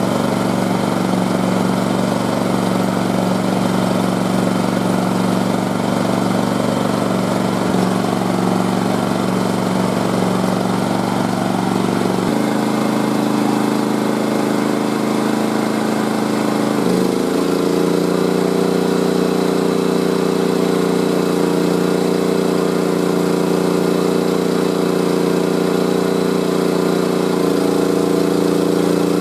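Portable generator engines running steadily in economy mode; the engine note steps up in pitch about twelve seconds in, again a few seconds later, and once more near the end, as the engine throttles up to carry added electrical load.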